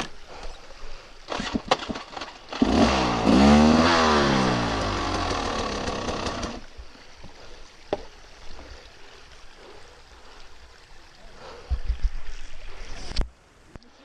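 Dirt bike engine revving hard for about four seconds, its pitch climbing and then falling, after a few sharp knocks. Near the end a second, lower burst of engine noise cuts off suddenly.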